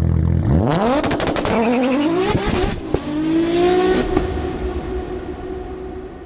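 Logo intro sound effect: an engine revs up in several rising sweeps over a run of glitchy clicks, then settles into a held tone that slowly fades.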